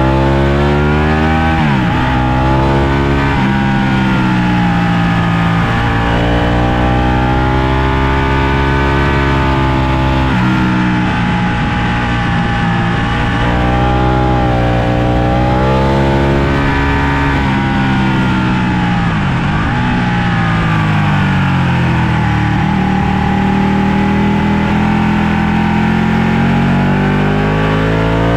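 Ducati Panigale 1199S's Superquadro V-twin engine heard from on board at track speed. The revs climb and fall through the gears, with sharp drops under braking and downshifting about two seconds in and again around nineteen seconds, each followed by the revs rising again.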